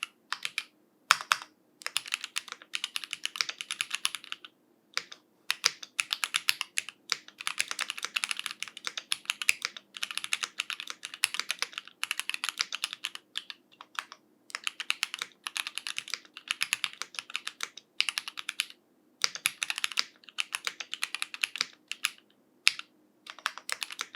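Typing on a Lemokey L3 mechanical keyboard with factory-lubed Gateron Red linear switches: fast runs of keystrokes broken by short pauses.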